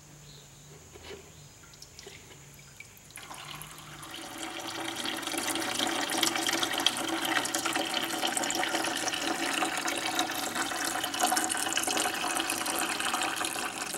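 Green antifreeze draining from the engine-block petcock of a Ford N-series tractor into a drain pan. After a few faint clicks, a steady splashing stream starts about three seconds in and builds within a couple of seconds: the water jacket being emptied.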